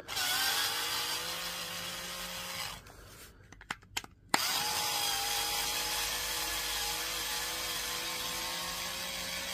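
Cordless electric screwdriver motor whining as it backs the case screws out of a Milwaukee M18 battery: one run of about three seconds, a short pause with a click, then a longer second run.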